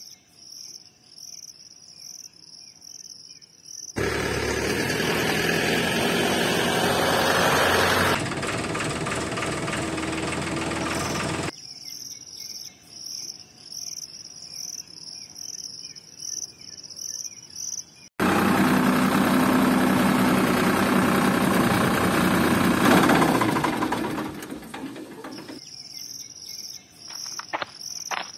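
Insects chirping in a steady pulsing rhythm, broken twice by several seconds of loud rushing noise that starts and stops abruptly. A few sharp clicks come near the end.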